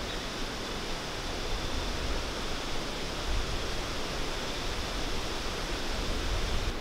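Steady rushing wind in the woods, with a low uneven rumble of wind on the microphone.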